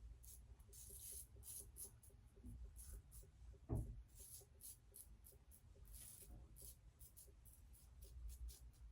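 Faint, quick scratchy strokes of an Ikon X3 slant safety razor cutting stubble through lather, one short stroke after another, with a brief low knock about four seconds in.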